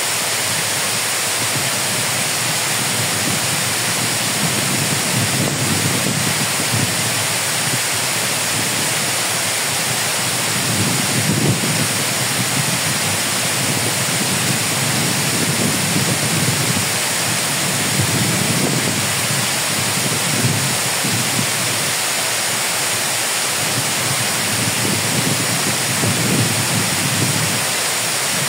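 Water pouring over a masonry dam's overflowing spillway into the reservoir below: a loud, steady rush that swells in the low end now and then.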